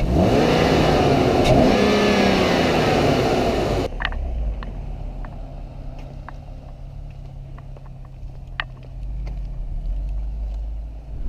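BMW E46 328i's 2.8-litre straight-six revved several times, in rising and falling blips. About four seconds in, it gives way to a quieter, steady low engine note with a few small clicks as the car drives off at low revs, growing a little louder near the end.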